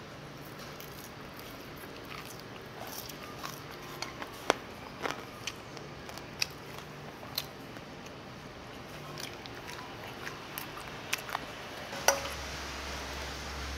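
Close eating sounds of someone chewing mouthfuls of mixed rice (bibimbap), with scattered sharp clicks of utensils on dishes. A low hum comes on near the end.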